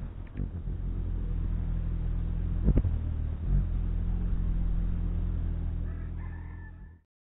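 Hummingbird wings humming as it hovers at a jar feeder close to the microphone, with a sharp knock about three seconds in. The hum fades and cuts off suddenly near the end.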